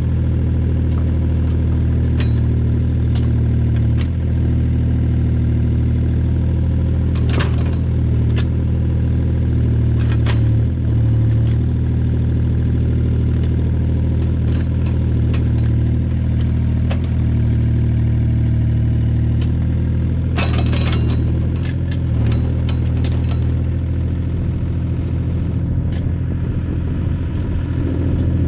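Diesel engine of an excavator running steadily, with a few sharp metal clanks, a cluster of them about twenty seconds in.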